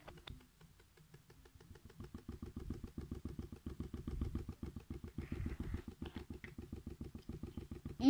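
Small fan spinning in the empty tub of a homemade toy washing machine, making a rapid, even ticking rattle of about ten clicks a second that grows louder about two seconds in.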